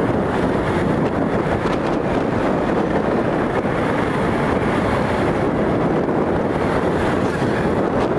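Steady rush of wind on the microphone of a moving motorcycle, with the engine and road noise running underneath.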